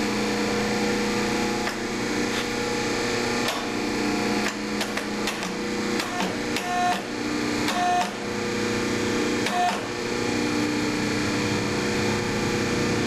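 Hydraulic tube bender working an exhaust tailpipe: a steady hum from the machine, with scattered clicks and metal knocks and three short high-pitched tones in the middle.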